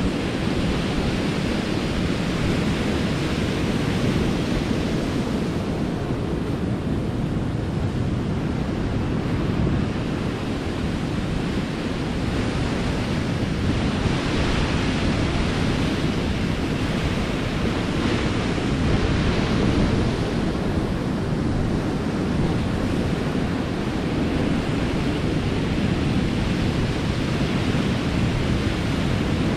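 Sea surf breaking and washing over a rocky shore, mixed with wind buffeting the microphone as a steady low rumble. The hiss of the breakers swells up a few times, most clearly about halfway through.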